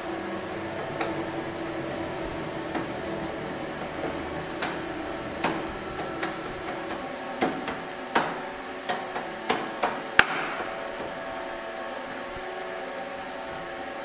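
A series of sharp metal taps, like a tool or hammer striking, spaced out at first, then coming faster and louder, the last and loudest one ringing briefly. A steady hum runs underneath.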